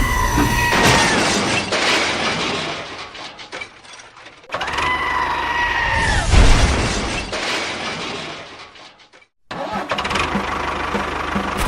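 A small engine running in edited segments, each starting with a steady whine that drops in pitch as the segment fades; the sound cuts off abruptly about nine seconds in and picks up again.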